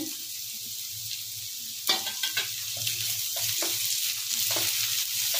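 Chopped capsicum, chillies and spring onion sizzling in hot oil in a granite-coated pan on high flame, stirred with a spatula. From about two seconds in, the spatula's scraping strokes come several times a second and the sizzle grows a little louder.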